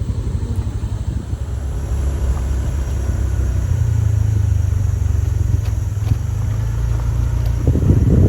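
Car driving along, a steady low rumble of engine and road noise that grows louder about four seconds in.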